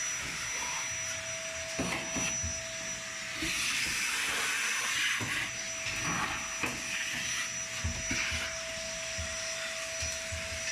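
Vacuum cleaner running steadily with a constant whine, the nozzle knocking and scraping now and then.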